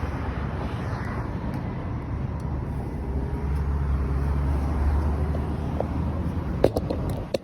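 Steady low vehicle rumble that swells a little around the middle, with a few sharp clicks near the end.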